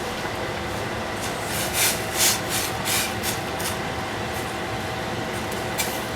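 Cabbage and eggplant being stir-fried in a hot pan: a run of short hissing sizzles as they are stirred, clustered in the first half and once more near the end, over a steady background hum.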